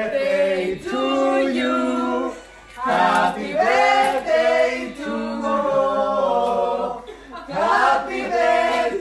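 People singing together without instruments, in phrases with long held notes and short breaks between them.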